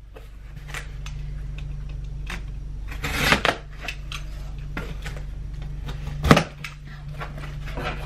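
A cardboard shipping box being cut open and handled: a blade slitting the packing tape, with scratchy scrapes and clicks of cardboard and two louder knocks, about three and six seconds in. A steady low hum runs underneath.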